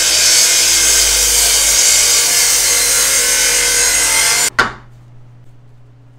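Power saw cutting through a walnut board, a loud steady cutting noise that cuts off abruptly about four and a half seconds in, followed by faint room tone.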